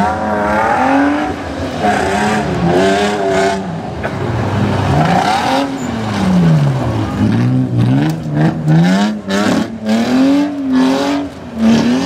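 BMW E36 Compact's engine revving hard and falling back again and again as the car is thrown around a dirt slalom course; about seven seconds in the pitch drops low before climbing once more. A run of sharp crackles comes in the second half.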